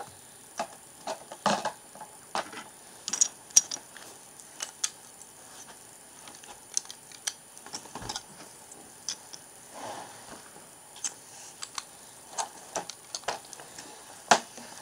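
Plastic Lego bricks clicking and clattering in irregular sharp clicks, as 6-stud bricks are picked out and pressed together.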